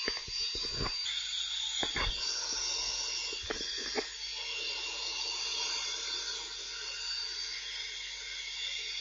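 Electric kitchen mixer running steadily at full speed, a high whirring whine with a hiss to it. A few light clicks and knocks fall in the first four seconds.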